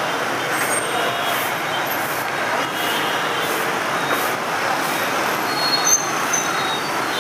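Dense city street traffic, mostly many small motorbike and scooter engines running and passing at once, making a steady, unbroken wash of engine and road noise. A few short high-pitched tones come through in the second half.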